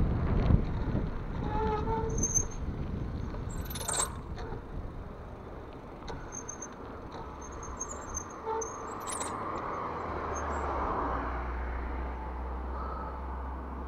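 Wind buffeting the microphone of a handlebar-mounted action camera, with tyre noise on asphalt, as a mountain bike rolls downhill. It is loudest at first and eases off. A couple of brief squeaks and two sharp knocks come about four and nine seconds in.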